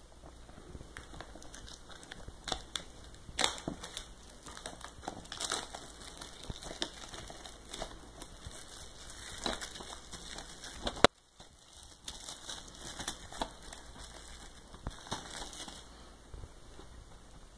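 Plastic packaging of a DVD being handled, crinkling and crackling in irregular bursts, with one sharp click about eleven seconds in.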